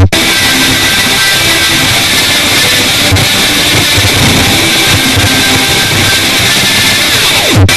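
Loud, noisy music with guitar. It breaks off for an instant near the end.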